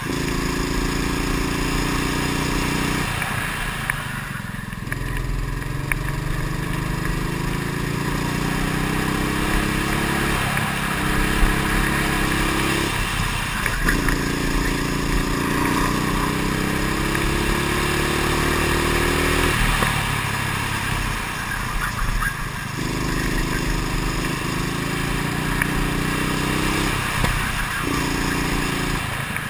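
Go-kart engine heard from a camera mounted on the kart, its revs climbing steadily along each straight and dropping sharply several times as the driver lifts off for the corners.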